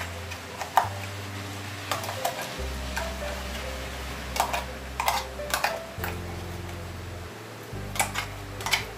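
Background music with a steady low bass line, over sharp clinks and scrapes of a metal spoon against a steel mixer jar and steel bowl as potato-spice paste is scooped out, about a dozen clinks scattered irregularly.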